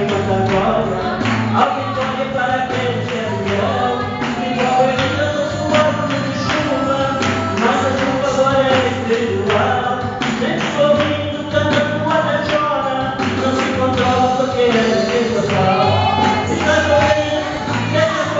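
Man singing a gospel song into a handheld microphone, amplified through a PA, over musical accompaniment with percussion keeping a steady beat.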